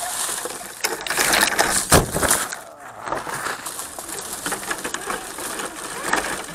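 Redcat Gen7 RC rock crawler's tyres crunching and scraping over rocks and gravel, in an irregular stream of grinding crunches with a loud knock about two seconds in.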